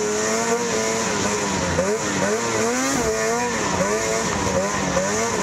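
Lynx racing snowmobile's engine heard from on board, revving up and down again and again as the throttle is worked, over a steady hiss of track and wind noise.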